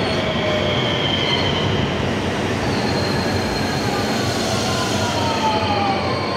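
Electric commuter train running past along the platform: a steady rumble of wheels on rail, with thin squealing tones that slide slowly lower. The last car goes by near the end.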